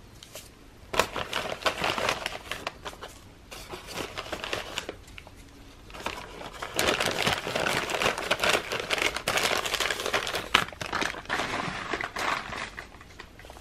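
Brown paper bags crinkling and rustling as hands open them and pull out bars of soap. The crinkling comes in irregular bursts and grows busier and louder in the second half.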